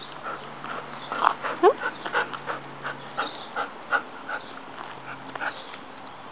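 A dog gives a short rising whine about one and a half seconds in, amid a run of light ticks and scuffs.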